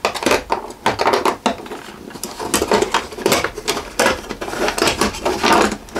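Flat steel coil spring, a small-engine recoil-starter spring, being fed by hand into a 3D-printed plastic spring barrel one coil at a time: irregular metallic clicks, scrapes and snaps as the coils slip and settle against each other and the barrel.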